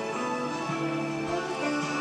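Background music: a gentle instrumental with sustained, held notes.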